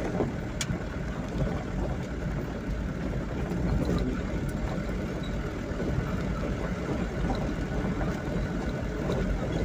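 Vehicle engine running with steady rumbling road and wind noise while moving along a rough unpaved road, with a brief click about half a second in.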